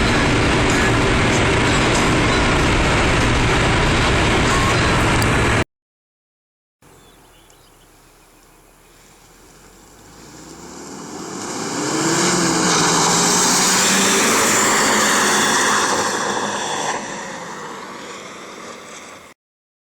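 Stock Nissan 200SX S13 at high speed: a loud, steady rush of engine, wind and road noise that cuts off about six seconds in. After a short gap the car's engine revs with wavering pitch while the tyres spin in a burnout, building to a loud hiss for several seconds and then fading away.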